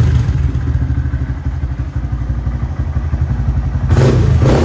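2018 Honda Grom's 125 cc single-cylinder engine idling through a Yoshimura exhaust, a steady rapid low pulsing, running easily on a freshly installed battery. It gets louder for a moment near the end.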